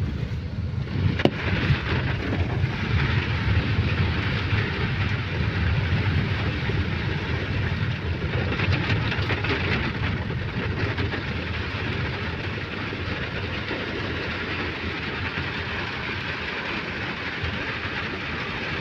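Car driving along a wet, flooded road, heard from inside the cabin: a steady low rumble with a hiss of water under the tyres, easing off a little in the second half.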